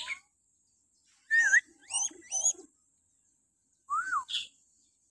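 Hill myna giving shrill whistled calls: a quick run of three short calls with sliding pitch about a second in, then one more rising-and-falling call near the end.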